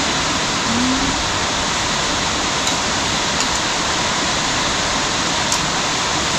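Heavy rain falling steadily, an even dense hiss, with a few faint short clicks.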